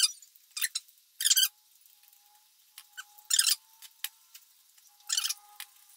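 Short, crisp scrapes at a dinner table, six or so spread out: a mandarin's peel being torn off by hand, then a metal fork scraping and squeaking on a ceramic plate.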